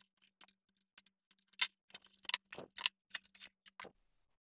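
Light, irregular metallic clicks and ticks of a pliers wrench and antenna parts being handled while a fitting is unbolted, with one sharper click about a second and a half in and a quick cluster near the middle.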